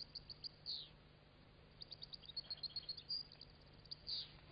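Faint twittering of European goldfinches: scattered short high chirps, a quick run of notes in the middle, and two downward-sliding calls, one just after the start and one near the end.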